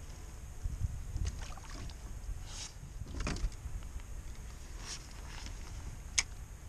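Handling noise in a small fishing boat: a steady low wind rumble on the microphone, with a few short scrapes and one sharp click near the end as the angler works a spinning rod and reel.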